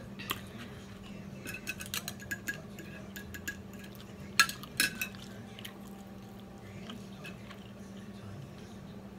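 A fork clinking and scraping against a plate as food is picked up: a run of light clicks, with two louder ringing clinks about halfway through.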